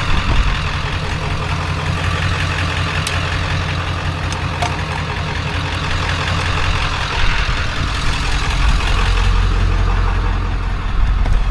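A vehicle engine running steadily, a continuous low rumble.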